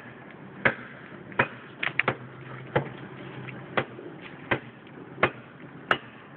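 Hand-held blade chopping into a green tree trunk: a sharp strike roughly every three-quarters of a second, about ten in all, a few coming in quick pairs.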